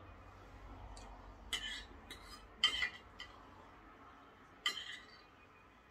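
Metal knife and fork clinking and scraping on a plate as food is cut: about five sharp clinks, the loudest a little under three seconds in.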